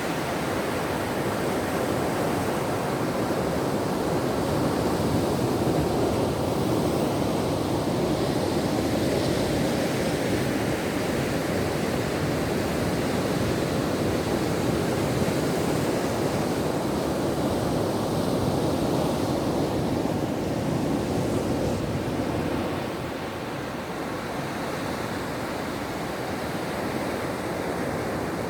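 Ocean surf breaking on a shore: a steady, continuous rush of waves, easing off a little about two-thirds of the way through.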